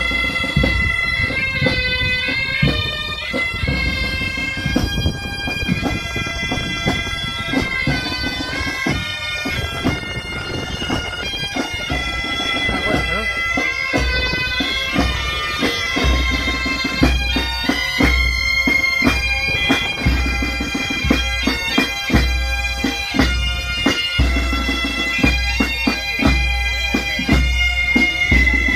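A band of Asturian bagpipes (gaitas) playing a tune over their drone while marching, with snare drums rattling along. A bass drum keeps a steady beat, about once a second, through the second half.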